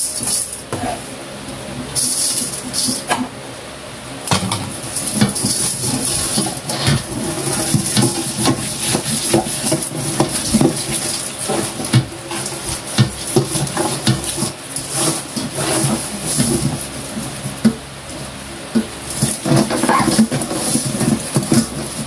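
Hands rubbing coarse salt over a raw whole chicken in a stainless steel bowl: irregular wet, gritty scraping and squelching, with many small clicks and knocks against the metal bowl.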